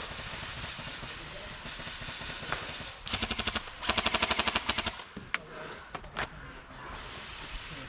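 Airsoft rifle firing two rapid full-auto bursts, the second a little longer, about three seconds in, followed by a couple of single shots.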